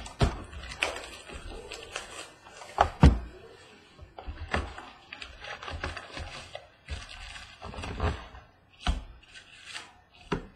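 Hands opening a cardboard baseball card box and pulling out foil-wrapped card packs, setting them down on a desk: rustling and crinkling with several sharp knocks as the box and packs hit the desktop.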